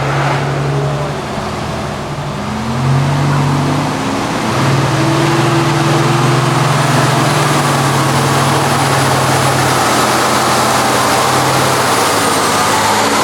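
Heavy truck's diesel engine pulling under load, its pitch rising about two to three seconds in and then holding loud and steady. A thin high whine sounds through the middle, over a steady hiss.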